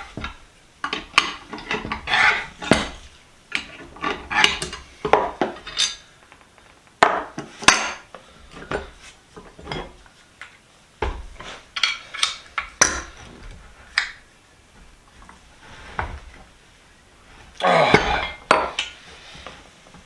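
Tools and loose metal parts of an old bench vise clinking, knocking and scraping as it is taken apart by hand, in irregular clatters with short pauses.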